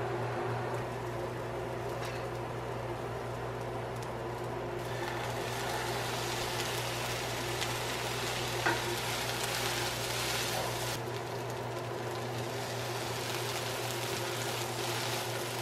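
Vegetables, lentils and rice sizzling in a frying pan. The sizzle grows louder about five seconds in, as a sauce is poured into the hot pan, and a steady low hum runs underneath.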